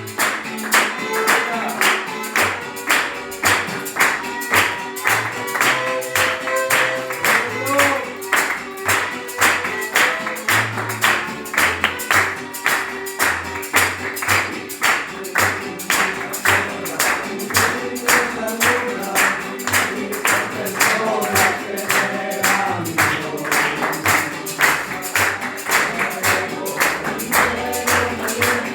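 Two violins playing a Latin-style praise song over a steady, quick rhythmic beat.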